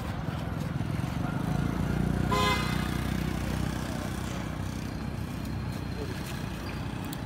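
A vehicle engine running steadily with a low hum. About two and a half seconds in, a short, steady high tone sounds once.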